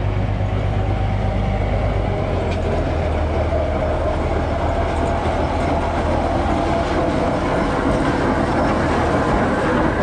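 GE 45-ton diesel-electric switcher running with a steady low diesel drone as it approaches and rolls past, pulling a caboose and passenger cars, getting slightly louder as it comes by.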